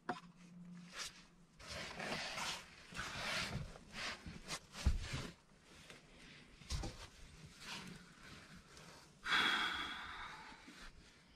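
A metal mug set down on a wooden table with a short knock, then clothes rustling and a couple of dull knocks on a wooden plank bunk as a man lies down. Near the end comes a long breathy exhale.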